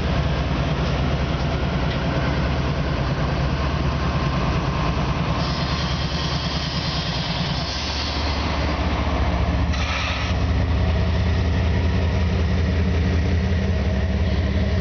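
Union Pacific #7633's diesel locomotive engine running with a steady low drone as the locomotive and the Loram ballast train roll slowly past. The drone gets louder and deeper after about eight to ten seconds as the locomotive draws level, with a brief hiss about ten seconds in.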